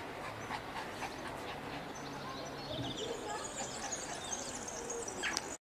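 Outdoor background noise with small birds chirping, the chirps thickest in the second half; the sound drops out abruptly near the end.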